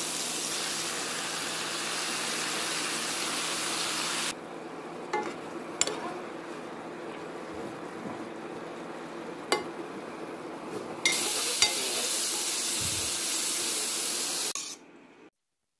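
Button mushrooms frying in sunflower oil in a small frying pan: a steady sizzle that drops to a quieter sizzle about four seconds in, with a few sharp clicks of a utensil against the pan, then grows loud again about eleven seconds in and stops abruptly shortly before the end.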